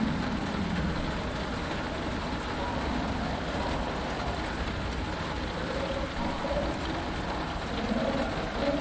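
Steady rain falling on a cockpit canopy, with faint low swamp-creature calls rising and fading underneath.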